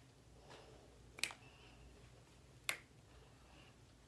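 Finger snaps, sharp single clicks about a second and a half apart over faint room tone.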